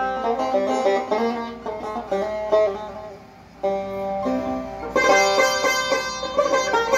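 A Persian tar made by Samad Saberi, its strings plucked with a brass plectrum, plays a melody of single notes and quick repeated strokes. The notes thin out briefly near the middle, then return louder and fuller.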